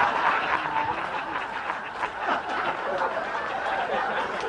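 Audience laughing and chattering, a steady wash of many overlapping voices.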